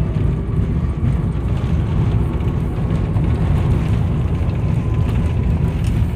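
Low, steady rumble in the cabin of an Airbus A350 rolling out on the runway after touchdown, ground spoilers raised, with a faint thin tone that slowly falls in pitch.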